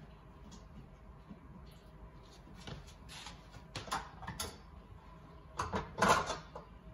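Scattered light knocks and clinks of kitchen things being handled at a stand mixer, the loudest near the end as the metal mixing bowl is worked loose and lifted off the mixer.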